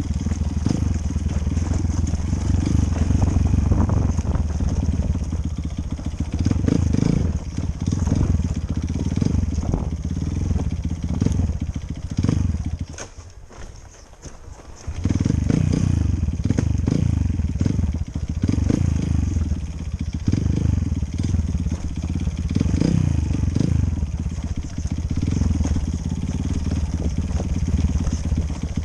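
Enduro dirt-bike engine running under way, its note rising and falling with the throttle. It drops away sharply for about two seconds near the middle, then picks up again.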